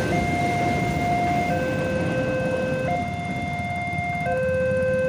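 Railway level-crossing warning alarm sounding a slow alternating two-note signal, high then low, each note about a second and a half long, warning road traffic that the crossing is closed. Motorcycle engines idle underneath.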